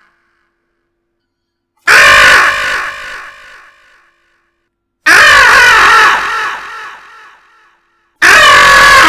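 A person's loud, harsh cries of pain, three in a row a few seconds apart, each trailing off over about two seconds.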